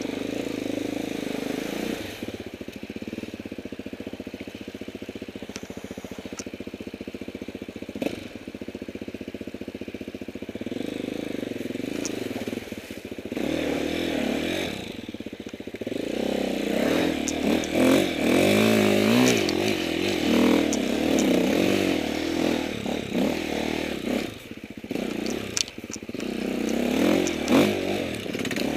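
Enduro motorcycle engine heard from on board, running at low, fairly steady revs at first, then revving up and down repeatedly from about halfway through as the bike works along a rough trail. Occasional sharp knocks from the bike over the ground.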